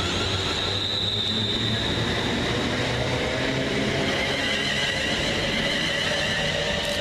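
Class 350 Desiro electric multiple unit pulling out of the station, its traction motors whining in several tones that slide in pitch and rise near the end, over a steady rumble.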